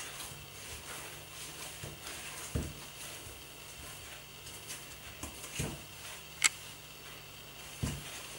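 Hands kneading soft dough in a bowl: quiet squishing with three soft thumps, and one short sharp click a little after the middle.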